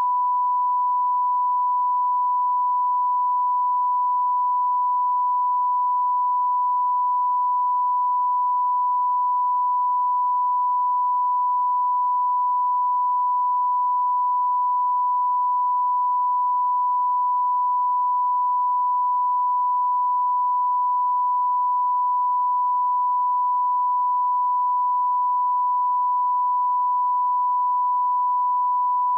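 Steady 1 kHz line-up test tone: a single pure pitch held at one unchanging level.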